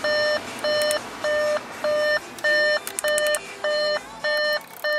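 2013 Audi Q5's interior warning chime beeping over and over at an even pace, a little under two beeps a second, each beep a short steady tone.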